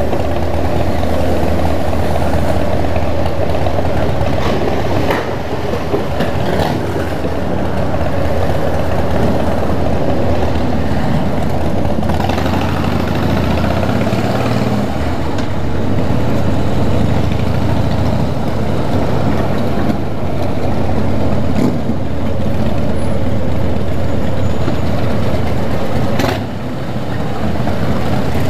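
V-twin cruiser motorcycle engine running steadily while riding, a continuous low rumble, with a brief dip in level near the end.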